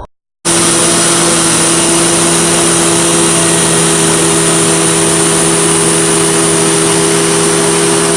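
Hoover Tempo Widepath upright vacuum cleaner running steadily, a loud motor drone with a high whine, cutting in suddenly about half a second in.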